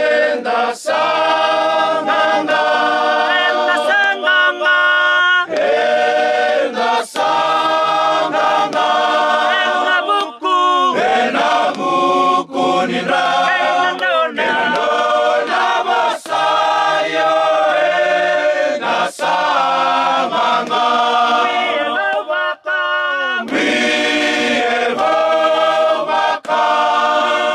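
A group of men singing together in harmony without accompaniment: slow, held notes that change every second or so, with a few short breaks for breath.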